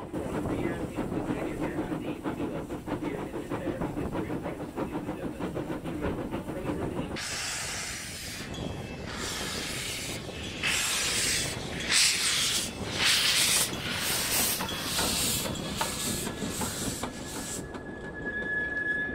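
Narrow-gauge steam train built by La Société de la Meuse: for the first seven seconds the coaches rumble with rapid clicking from the wheels. Then the locomotive passes with steam hissing out in repeated puffs. Near the end a thin steady squeal of wheels on the curve sets in as the coaches roll by.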